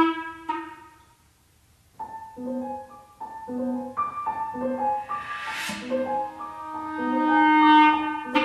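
Chamber quintet of flute, clarinet, violin, cello and piano playing minimalist contemporary classical music. A held note swells and dies away, a brief pause follows, then a repeating figure of short piano notes sounds under longer held tones, with two swells of hiss.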